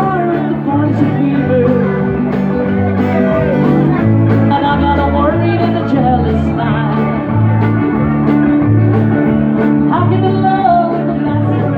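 Live band playing an acoustic country-folk song, with a steady walking bass line under guitar chords and a melodic lead line.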